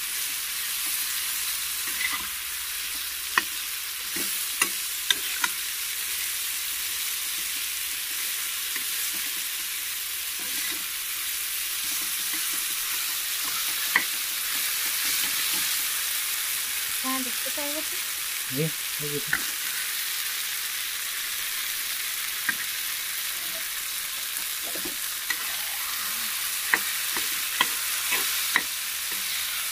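Mashed roasted-eggplant bharit sizzling steadily in oil in a non-stick frying pan while a steel spatula stirs and scrapes it. The spatula knocks sharply against the pan now and then, more often near the end.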